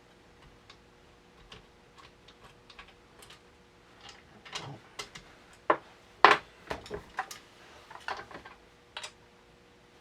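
Irregular small metallic clicks and knocks of a stainless-steel Filipstad pump-action shotgun being handled and checked during reassembly. They are faint and sparse at first and become louder and more frequent about halfway through.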